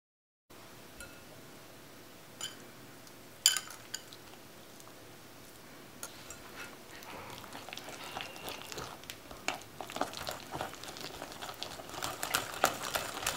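A few separate clinks in the first four seconds, the loudest about three and a half seconds in. Then a wire hand whisk works thick cake batter in a glass bowl, its tines clicking and scraping against the glass, getting quicker and denser toward the end.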